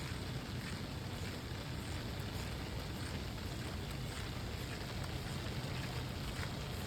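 Steady rain ambience: an even hiss of rain over a low rumble, with scattered faint drop ticks.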